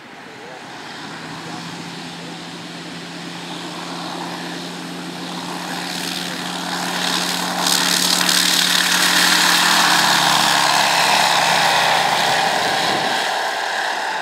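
Light sport aircraft's Rotax 912 flat-four engine and propeller running at full power on the takeoff roll and climb-out: a steady engine drone that grows louder to a peak about two-thirds of the way through, then eases a little as the plane climbs away.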